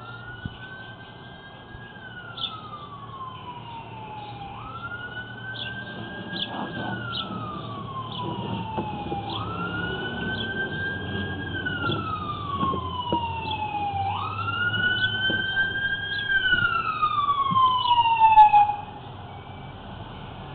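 Emergency vehicle siren wailing, its pitch slowly rising and falling about every four and a half seconds. It grows louder and cuts off suddenly near the end.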